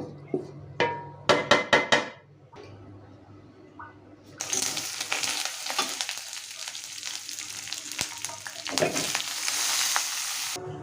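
A metal utensil clinks against a pan about five times in quick succession. Then, about four seconds in, loud sizzling of food frying in hot oil starts suddenly, keeps up steadily and cuts off abruptly near the end.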